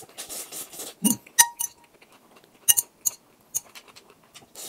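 A slurp of instant noodles, then thin metal chopsticks clinking against a glass bowl several times as more noodles are picked up. The sharpest clink comes about a second and a half in.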